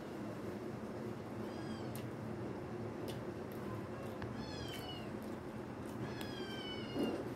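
An animal's high, thin cries, about three of them, each falling in pitch; the last one, near the end, is the longest. Faint clicks come between them, and a soft thump near the end.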